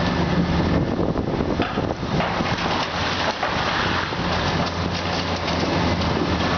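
Komatsu PC400 excavator's diesel engine running with a steady low hum, under a continuous crackling, gritty noise.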